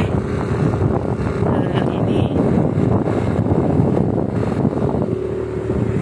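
Motorcycle running at riding speed, its engine drone mixed with heavy wind buffeting on the microphone.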